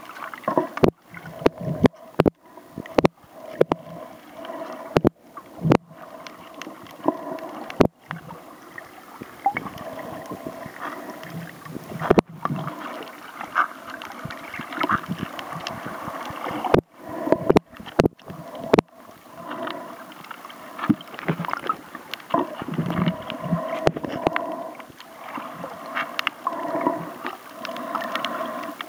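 Underwater sound picked up by a submerged camera while snorkeling: a muffled, steady drone with irregular knocks and clicks throughout.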